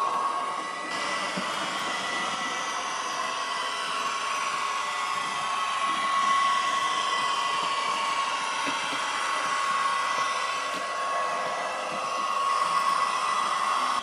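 H0-scale model trains running on the layout: a steady whir of the locomotive motors and wheels on the track, with a constant high whine.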